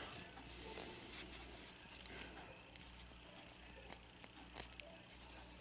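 Faint scratching and a few small clicks of a small plastic Transformers BotBots toy figure being handled, its parts moved by fingers as it is transformed.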